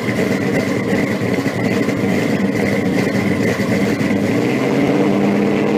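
The supercharged V8 of a blown pro street 1970 Camaro idling steadily.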